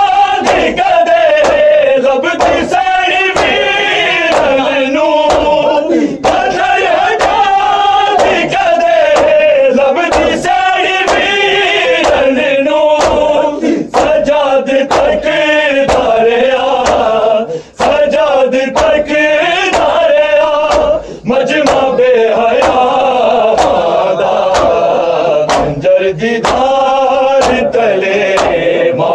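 A group of male mourners chanting a noha (Shia lament) together, with steady slaps of chest-beating (matam) keeping time, about one and a half beats a second.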